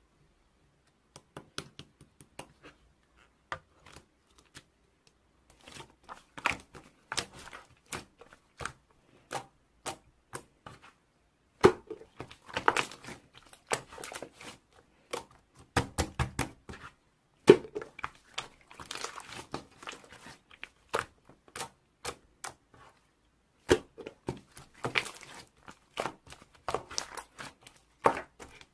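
Hand-played slime being squeezed and stretched, giving irregular sharp pops and crackles, with a few louder snaps.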